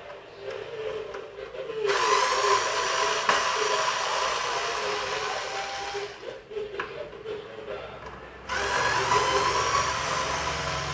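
A small electric motor whining in two runs of a few seconds, each switched on suddenly, the first stopping near the middle and the second starting again shortly after.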